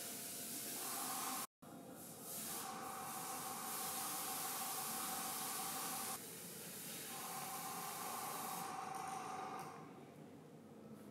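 Airbrush spraying paint in long hissing bursts, with a whine under the hiss. The sound cuts out completely for a moment about a second and a half in.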